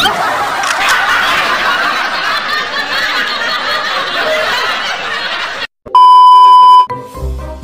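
Laugh-track sound effect: a crowd laughing and snickering for about five and a half seconds, cutting off suddenly. Then a loud, steady test-tone beep, as played over TV colour bars, lasting about a second, with background music starting just after.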